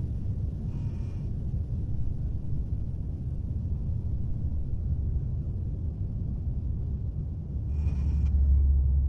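A steady low rumble, swelling near the end, with two short high-pitched calls: one about a second in, one near the end.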